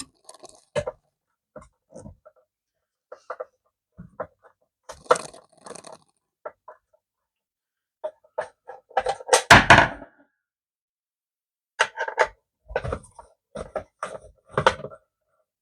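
Scattered clicks, clacks and knocks of an inverter refrigerator PCB unit being handled and its casing opened, with a heavier thump about nine to ten seconds in.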